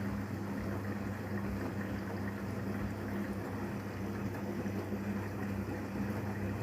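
Daewoo DWD-FT1013 washing machine in the cooldown stage of a 95°C cotton wash: water rushing through the machine with a steady low hum.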